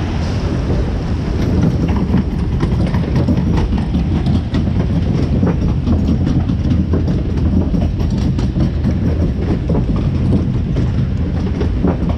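A loud, steady low rumble with frequent, irregular clicks and clacks over it.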